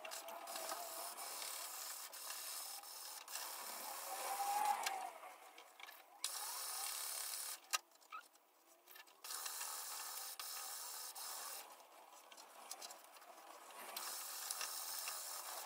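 Sanding block rubbed by hand over a carbon fiber fender, making a rasping scrape, alternating with a cloth wiping the surface. The rubbing stops for a few short pauses.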